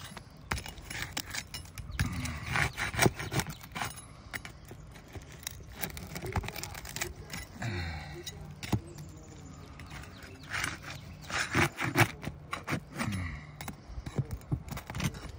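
Flat steel pry bar scraping and clicking against asphalt shingles as it is worked under a tab to break the seal and lift it, in irregular clicks and scrapes throughout. The shingle is already losing its structural integrity.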